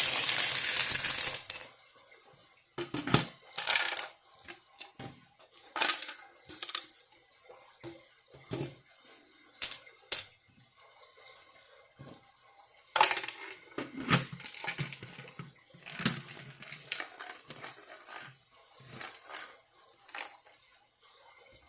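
Loose coins clinking and clicking as they are handled and set down, in scattered single clicks and short clusters. The first second and a half is a loud, dense rush of sound.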